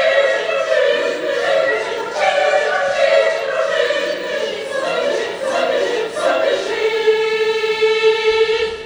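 Choir singing the closing phrase of a song, ending on one long held note that is cut off near the end.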